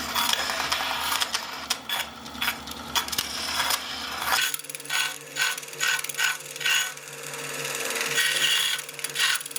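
Hand-tool work on an old axe or hammer: scraping and sharp clicks, then, after an abrupt change partway through, a run of regular strokes about two a second, like filing or rasping.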